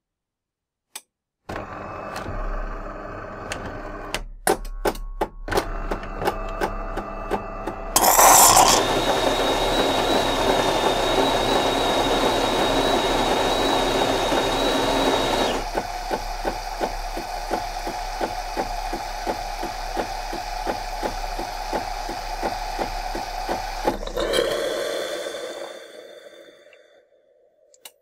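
De'Longhi Magnifica Pronto automatic coffee machine on its cappuccino cycle, frothing milk from its milk carafe into the cup. It whirs and clicks as it starts, then about eight seconds in a sudden burst of steam gives way to a steady hiss with a high whistle. About halfway through this changes to a quieter, steady running with a regular ticking, which fades out near the end.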